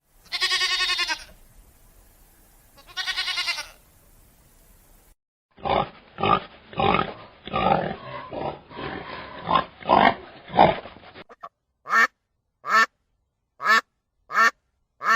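A string of different animal calls. First come two long calls of about a second each, then a run of grunts for about five seconds, then short, sharp barks repeating a little under once a second.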